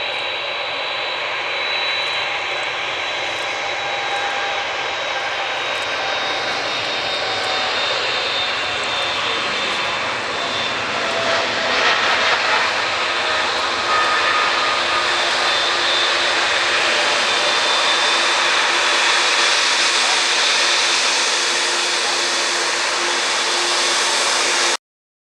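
A Boeing 777-300ER's GE90-115B jet engines running at takeoff thrust. It is a steady, loud roar with a high fan whine that swells gradually, then cuts off suddenly near the end.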